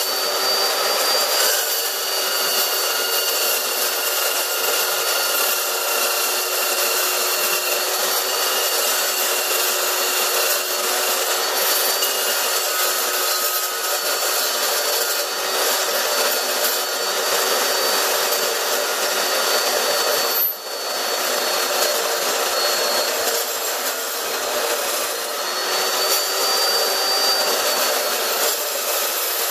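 Evolution S380 chop saw's 15-inch blade cutting through steel tube: a steady, loud cutting noise with high whining tones running through it, easing briefly about two-thirds of the way through.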